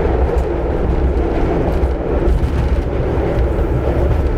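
BART train heard from inside the car, running loud with a heavy low rumble and a fading high wheel whine as it pulls into a station.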